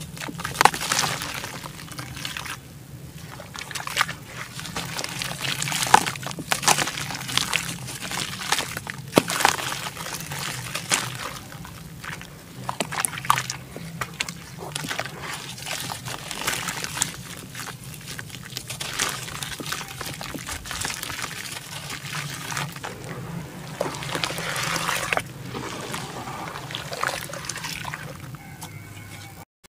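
Hands crumbling and squeezing lumps of red dirt in a basin of muddy water: wet sloshing, squelching and dribbling, with many sharp little crackles as the soaked clumps break apart. The sound cuts out for a moment just before the end.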